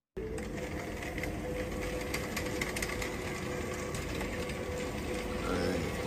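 Steady machine-like whirring hum with a held tone and a few faint clicks, starting suddenly just after the start.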